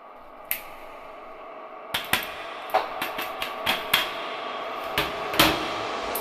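A run of irregular sharp clicks and taps of hard objects being handled, about a dozen in four seconds, over a steady faint hiss; a single click comes first, about half a second in.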